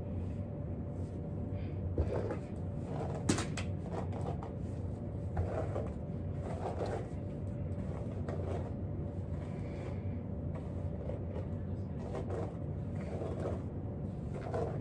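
Steady low room hum with two sharp knocks about two and three seconds in, and soft thuds and rustles of someone moving about.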